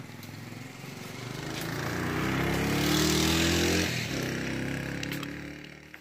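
A motor running and rising in pitch, loudest about three seconds in, then fading away.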